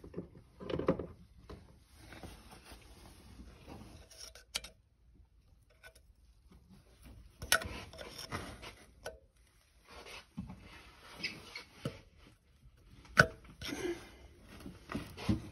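Irregular rubbing and knocking handling noises, with a sharp click about 13 seconds in. No engine is running.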